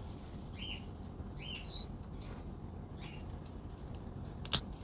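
A parrot giving a few soft, short chirps, with one brief high whistle, the loudest, a little under two seconds in.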